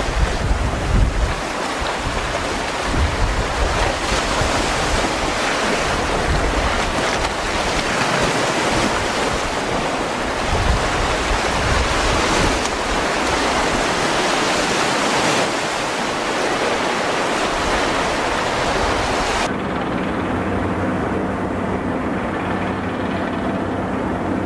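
Wind buffeting the microphone over waves on a choppy sea, with gusty low rumbles. Near the end the sound cuts abruptly to a steadier, duller low engine hum.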